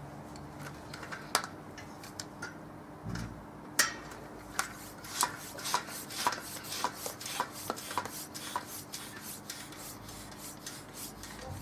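Hand pump inflating a bicycle inner tube a little through its Presta valve: a quick run of short rasping strokes, about two a second, starting about four seconds in, after a few scattered clicks.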